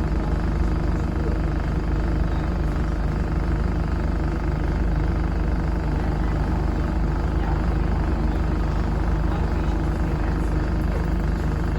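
Dennis Dart SLF single-decker bus with an Allison 2100 automatic gearbox running steadily, its loud engine hum heard from inside the saloon.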